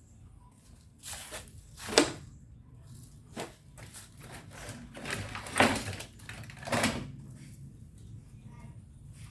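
Handling noises: a few scrapes and rustles of objects being moved, loudest about two seconds in and again between five and seven seconds in.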